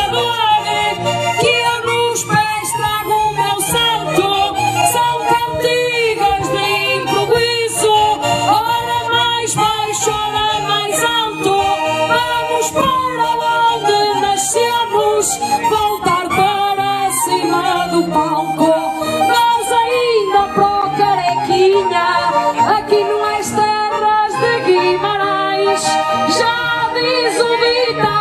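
Portuguese desgarrada: a woman singing through a microphone over a squeezebox accompaniment in traditional Minho folk style.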